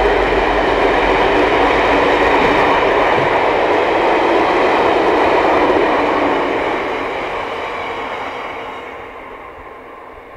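Freight train of bogie stone hopper wagons rolling past on the rails, a steady loud wheel-on-rail noise that fades away over the last few seconds as the end of the train goes by.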